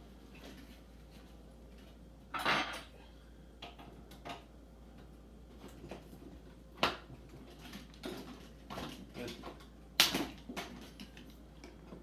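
Clicks, snaps and small clatters from the locking tabs of an LG 32GK850G monitor's LCD panel frame as they are pried and unclipped by hand. There are three sharper snaps, the loudest about ten seconds in, with lighter ticks between them.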